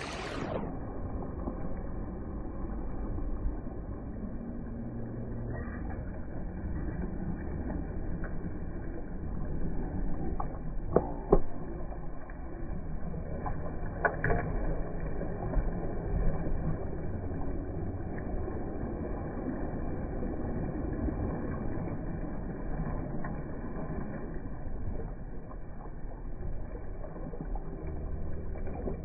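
Jet ski engine running, heard muffled with no highs, its low pitch shifting as the throttle changes, with a couple of sharp knocks about 11 and 14 seconds in.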